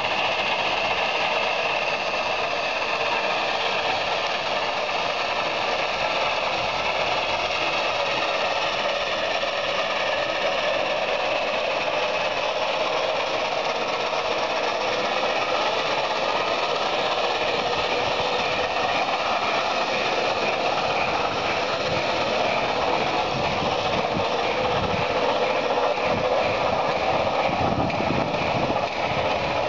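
Steady hiss of steam from an FS class 640 steam locomotive standing in steam on a turntable. Low rumbling knocks join in over the last several seconds as the turntable is pushed round.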